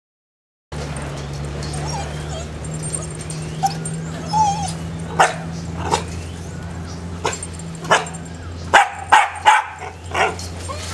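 Dogs barking in short, sharp barks, with a few brief whines before the barking starts. Near the end three barks come in quick succession, followed by one more.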